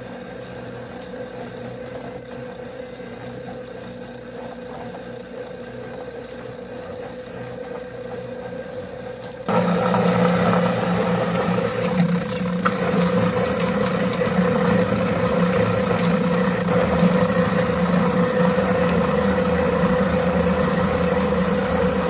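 Electric drum-style chicken plucker running with a steady hum while a scalded bird tumbles against its rubber fingers. About nine seconds in it is suddenly much louder, with the hiss of a hose spraying water into the drum.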